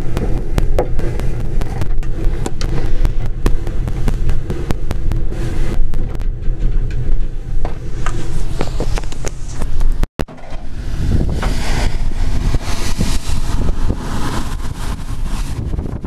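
Steady low rumble of a commercial fishing boat's engine heard inside the hull, with knocks and rubbing from the camera being handled. The sound cuts out for an instant about ten seconds in and comes back with more hiss.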